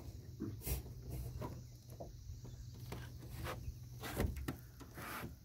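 Irregular light knocks and taps on a small boat, the strongest about a second in and again near four seconds, over a low steady hum and a faint high hiss.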